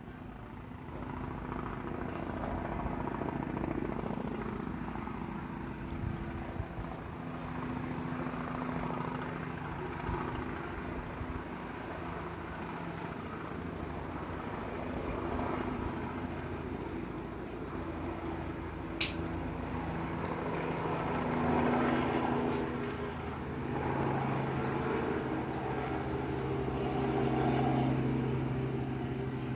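Small helicopter flying overhead: a steady rotor and engine drone that swells and eases as it moves across the sky. A single short high chirp cuts through about two-thirds of the way in.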